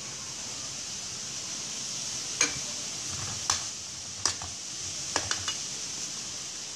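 Metal spoon stirring a thick mash of purple yam in a stainless steel bowl, with about six sharp clinks of spoon on bowl between about two and five and a half seconds in, over a steady hiss.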